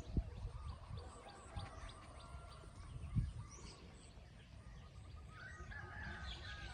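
Birds chirping and calling in the background, in short repeated calls, with a couple of low thumps: one just after the start and one about three seconds in.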